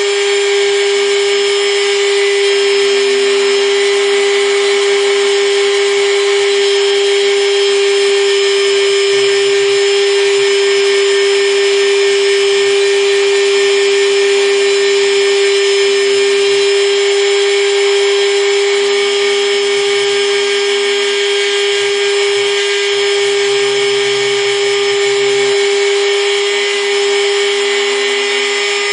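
Takima spindle of a small CNC mill running at a steady high whine while a 0.8 mm bit engraves a copper PCB, with a lower hum coming and going underneath.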